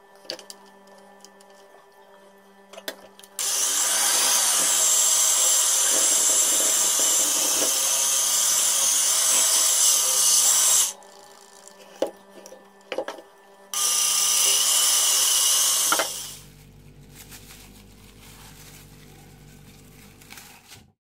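Electric hand mixer beating a thick Nutella, flour and egg dough in a glass bowl: it runs steadily for about seven seconds, stops, then runs again for about two seconds. A few sharp knocks come before and between the two runs.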